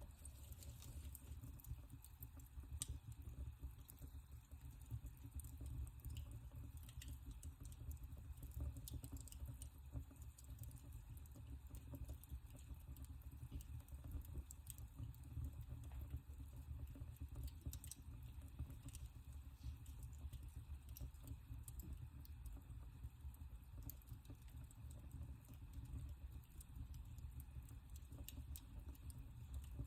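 Wood fire burning in a fireplace, crackling with frequent small irregular pops and ticks over a low, steady rumble of the flames.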